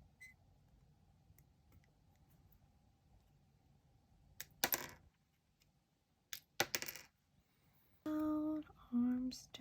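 Hard plastic model-kit parts clicking and knocking together, two sharp clicks a couple of seconds apart. Near the end comes a short pitched sound held on steady notes that steps down in pitch.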